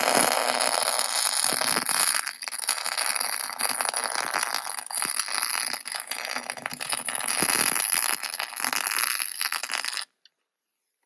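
Miller-Matic 252 MIG welder arc running a continuous bead on the cracked steel around a semi truck's kingpin: a steady, dense crackle and sizzle that cuts off suddenly about ten seconds in when the trigger is released.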